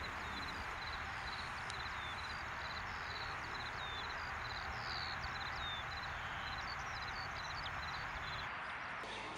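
Outdoor field ambience: small birds singing, with many short repeated chirps and trills, over a steady low background hiss. The ambience drops away slightly near the end.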